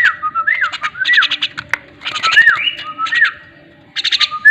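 Birds calling: repeated clear whistled notes that rise and fall, mixed with short bursts of rapid, clicky chatter, with a short pause shortly before the end.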